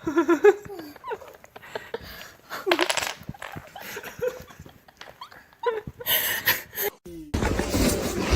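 A dog making short vocal sounds that bend in pitch, with some laughter. Near the end the sound changes suddenly to a louder, steady noise.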